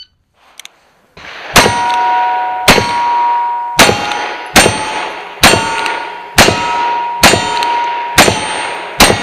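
Nine gunshots, roughly one a second, firing black powder, which throws off the heavy white smoke seen. Each shot is followed by the ringing of a struck steel target.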